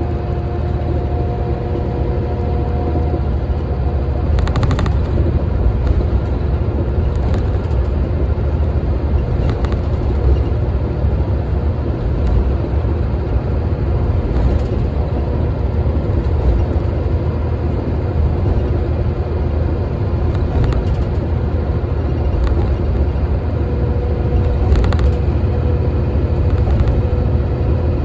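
Tokyu city bus driving along, heard from inside: a steady low engine and road rumble with a faint whine, and light knocks every two to three seconds.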